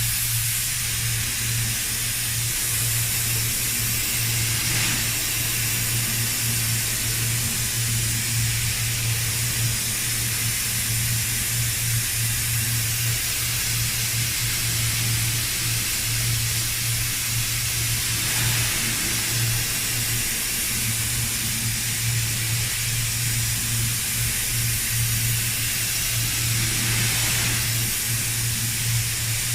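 Paint spray gun hissing steadily with compressed air over a constant low hum from the spray booth or compressor.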